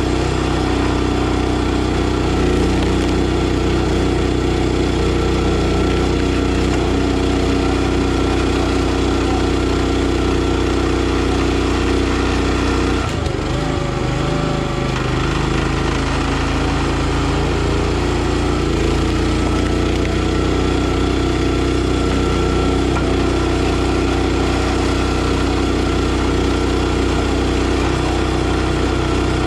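Gas-engine hydraulic log splitter (NorthStar 37-ton) running steadily. About halfway through, its pitch dips and wavers for a few seconds as the engine takes the load of the ram splitting a log, then it settles back.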